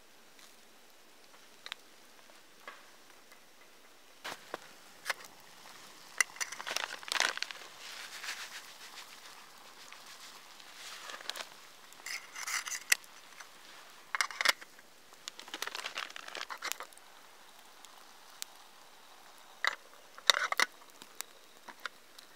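Wood campfire crackling and popping in irregular clusters of sharp snaps, with quiet stretches between them.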